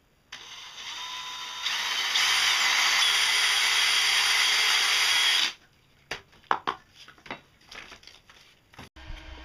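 DeWalt 20V cordless drill running under load while drilling, stepping up in speed twice and stopping after about five seconds. A scatter of light knocks and clicks follows as parts are handled on the workbench.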